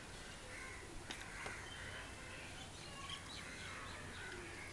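Faint outdoor ambience with birds calling here and there in the background.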